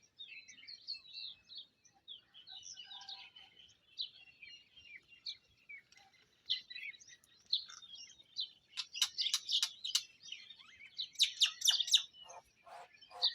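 Many small birds chirping and twittering continuously in high, short notes. About nine seconds in comes a rapid run of sharp clicks lasting roughly three seconds, followed near the end by a few lower, fuller calls.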